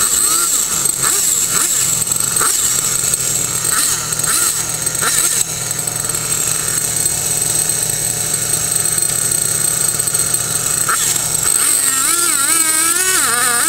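Husqvarna chainsaw running while it cuts into the trunk of a dead hybrid poplar. The engine note stays steady for most of the time, then its pitch wavers rapidly up and down near the end.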